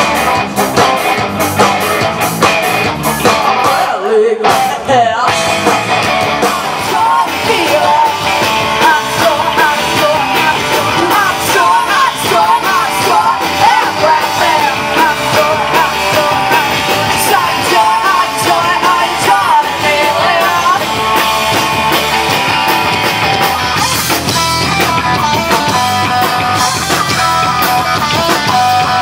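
Rock band playing live and loud: electric guitars, bass and a drum kit, with a sung vocal line. The drums and low end drop out briefly about four seconds in, then the full band comes back.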